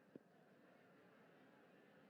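Near silence: a faint, steady background hiss of the broadcast, with one brief faint click just after the start.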